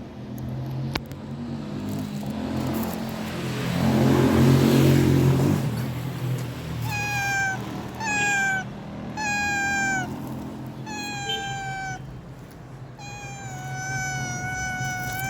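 A domestic cat meowing over and over: several short calls that fall slightly in pitch, then longer, drawn-out meows near the end. Before the meows, about four to five seconds in, comes a louder, rough low-pitched noise.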